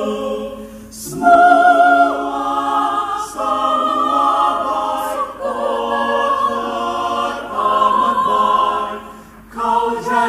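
Mixed choir singing held chords in several voice parts, a slow gospel chorus, with brief breaths between phrases about a second in and again near the end.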